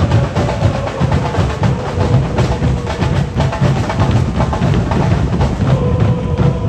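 Football ultras' drums beaten in a fast, steady roll, with the massed voices of the stand holding a long chant note that slowly falls; near the end a new held note comes in.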